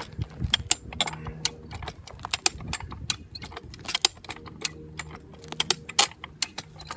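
High-lift farm jack being pumped by hand: sharp metal clicks and clanks, two or three a second, as its climbing pins catch on the bar with each stroke of the handle, with the chain around the stump rattling.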